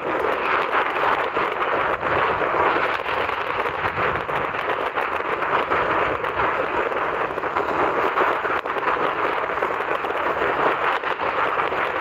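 Steady, even rushing noise of wind and surf along a rocky seashore, with no distinct events.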